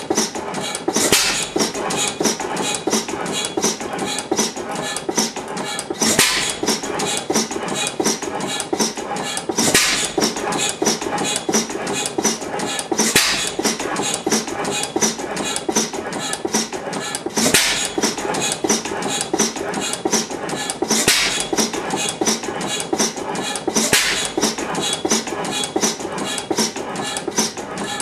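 1911 Schluter stationary gas engine running, a steady rapid mechanical clatter with a louder bang every three to four seconds.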